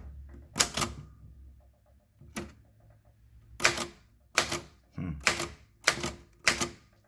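Keys of a Japanese-made Royal manual typewriter in a transparent plastic case being struck one at a time, about eight separate strikes at an uneven, slow pace with short pauses between them.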